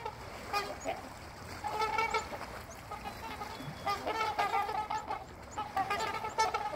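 Swans calling repeatedly, a loose series of pitched calls, some short and some drawn out to about half a second, with several calls overlapping.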